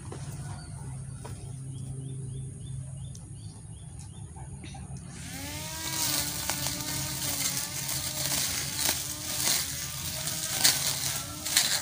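Electric grass trimmer fitted with a metal blade, its motor running with a steady hum. About five seconds in it starts cutting long grass: a louder rush with the motor note wavering under load and scattered sharp strikes as the blade hits stems.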